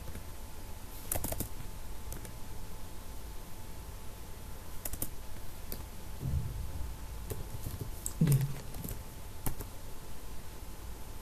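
Computer keyboard typing: scattered single keystrokes and short runs of a few keys, with pauses between them.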